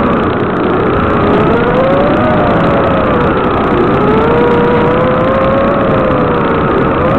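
Electric motor of an FPV aircraft heard over its analog video link: a steady whine that drifts slowly up and down in pitch with the throttle, under a heavy even hiss.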